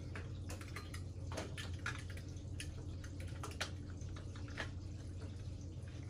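Light, irregular clicks and taps of plastic animatronic parts being handled and fitted together, over a steady low hum.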